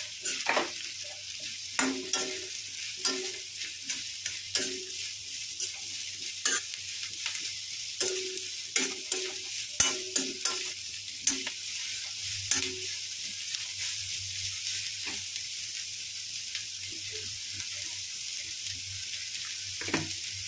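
Chopped onions, garlic, ginger and green chillies sizzling in oil in a kadhai while a steel spatula stirs them, scraping and knocking against the pan. The scraping comes often over the first dozen seconds, then the steady sizzle goes on with only an occasional scrape, one more near the end.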